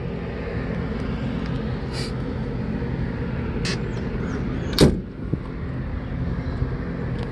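The all-steel door of a 1930 Ford sedan delivery shut about five seconds in: one loud thud, after a couple of light clicks, over a steady low hum.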